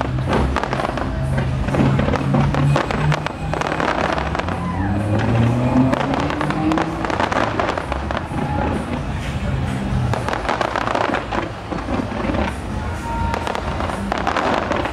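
Fireworks bursting and crackling in rapid, overlapping bangs, with music playing underneath.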